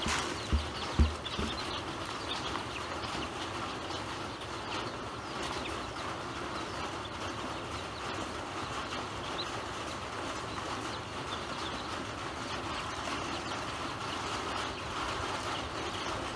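A group of ducklings peeping and pecking at grain in a plastic basin, with a couple of dull thumps about a second in.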